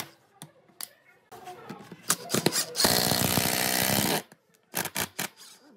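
Cordless impact driver driving a long screw into pine, hammering hard for about a second and a half near the middle, then stopping abruptly. Short clicks and taps come before it.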